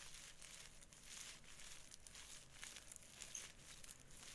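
Faint crinkling and rustling of something handled close to the microphone: a run of small, irregular crackles.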